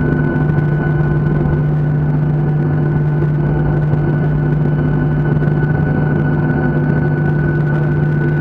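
Airliner's jet engines heard from inside the cabin, running steadily at low power while the plane taxis: an even drone with a constant low hum and a thin high whine over it.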